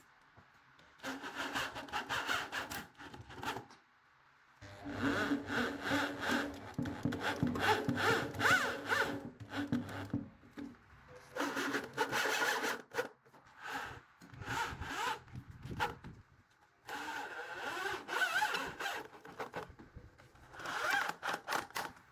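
Hand saw cutting through wood in quick back-and-forth strokes, in about six bouts separated by short pauses.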